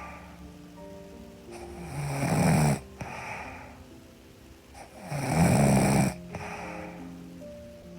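A woman snoring in her sleep: two loud snores about three and a half seconds apart, each lasting about a second. Soft background music with slow held notes plays underneath.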